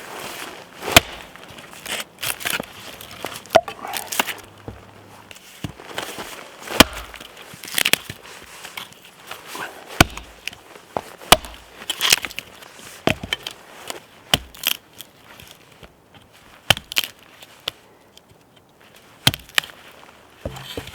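Wood being chopped or split with an axe or hatchet: sharp, irregular strikes roughly one a second, with short pauses between groups.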